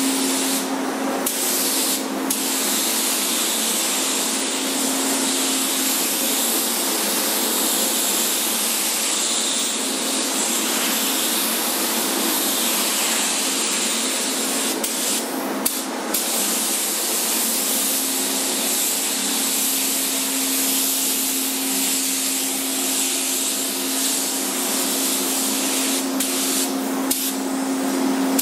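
Gravity-feed paint spray gun hissing steadily as it sprays paint, over a steady low hum.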